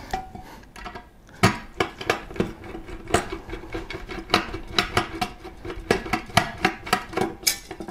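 A screwdriver driving a bracket screw into the Arctic Freezer 33 cooler's base, its shaft passing down through the metal heatsink fins: a run of irregular metallic clicks and clinks, several a second, starting about a second and a half in.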